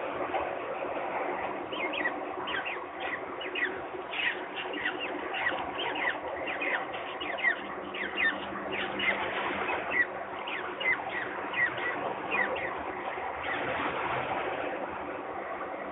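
Peregrine falcon chicks peeping at hatching: a long run of thin, quick, falling peeps, two or three a second, from about two seconds in until about thirteen seconds, over a steady hiss. The calls come from a hatchling and from a chick still under its shell.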